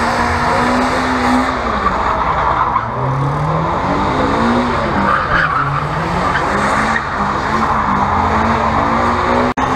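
Car engine revving up and down as the car drifts, with tyres screeching on tarmac. The engine note is held high for the first second or so, then falls and climbs again several times with the throttle.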